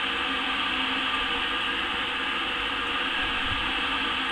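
Steady mechanical hum and hiss of an all-in-one brewing system's pump running, moving hot sparge water through the grain bed.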